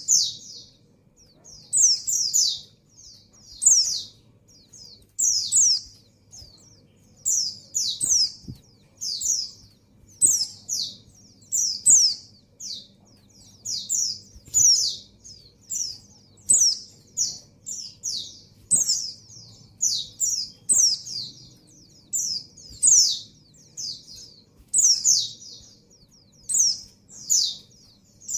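Female white-eye (pleci) in breeding condition, calling for a male: clusters of short, high, quickly falling chirps, repeating about every one to two seconds.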